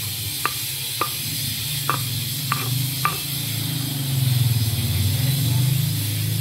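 Stone pestle grinding fresh chilies, shallots and spices against a stone mortar (ulekan and cobek): a steady rough scraping with five sharp stone-on-stone knocks in the first three seconds. The grinding gets louder near the end.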